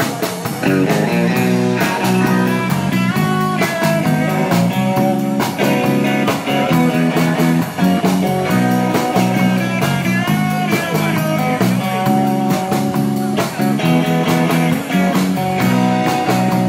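Live rock band playing: electric guitar lead lines with bent notes over bass guitar and a drum kit.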